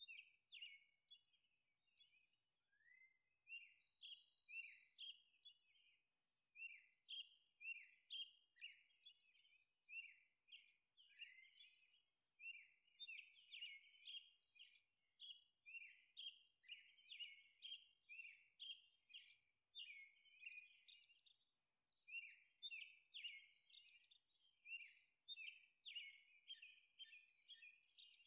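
Faint bird chirping: a steady stream of short, quick chirps, several a second, with a brief gap about six seconds in.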